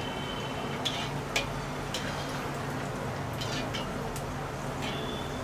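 Mirchi vadas deep-frying in hot oil in a metal kadhai, a steady sizzle, with a slotted metal spoon clicking and scraping against the pan several times as they are turned over.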